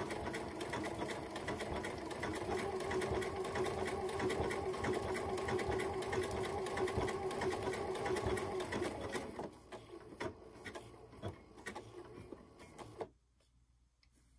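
Electric sewing machine running steadily as it stitches quilt binding, then stopping about nine seconds in. A few faint clicks follow as the machine and fabric are handled at the corner.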